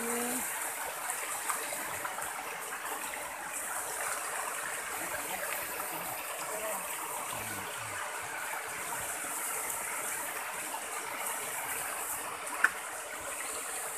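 Shallow rocky river running steadily over stones, with one sharp click near the end.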